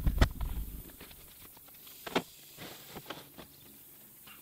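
A few heavy handling thumps at the start as the camera is set down, then a quieter stretch with a few scattered light clicks and taps, one sharper click about two seconds in.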